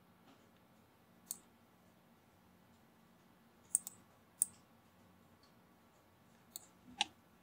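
Computer mouse buttons clicking, a handful of short sharp clicks spaced irregularly, the loudest near the end, as pins are placed and dragged on the screen.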